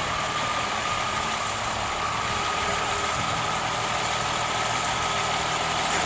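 M35 deuce-and-a-half military truck's engine running steadily at low speed as the truck creeps forward. A thin high whine rides over the engine note and slowly rises in pitch.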